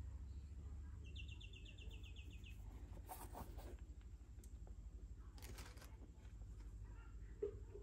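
Faint rustling of tissue paper and box as a suede sneaker is handled, twice, over a steady low hum. About a second in, a quick high trill of about a dozen short notes, and a soft tap near the end.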